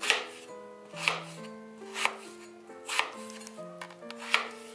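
A kitchen knife slicing through raw potatoes and striking a white plastic cutting board: five cuts, about one a second.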